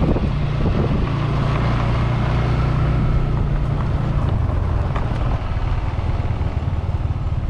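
Motorcycle engine running steadily at low road speed, a constant low drone under a steady rush of wind and road noise.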